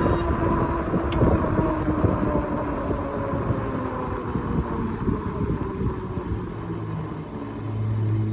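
A vehicle on the move with rough wind rumble on the microphone; its motor whine slowly falls in pitch as it slows, and a steady low hum comes in near the end.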